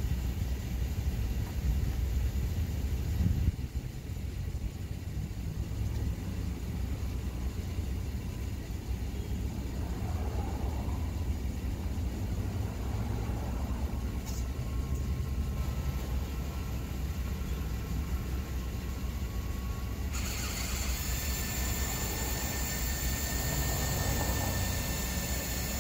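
A steady low rumble dominates. From about ten seconds in, a faint whine is heard as an Airstream trailer's power awning rolls out on its new gas-strut rafters.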